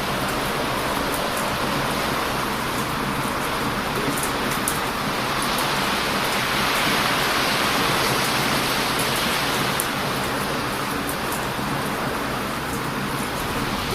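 Heavy ocean surf breaking on a beach: a steady rush that swells and eases slowly. A few sharp crackles from a wood campfire come through over it.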